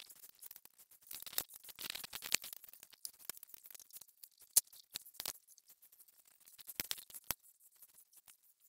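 Faint sticky swishing and light clicking of a paint roller and spiked shoes working through a wet urethane clear coat on an epoxy floor, with a few sharper clicks about halfway through.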